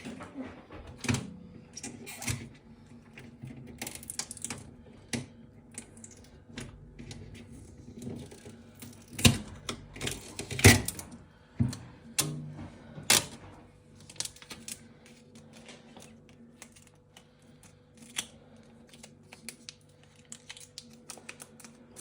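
Blue protective plastic film being peeled off a new fridge: irregular crackles and clicks, loudest a little after nine and eleven seconds in.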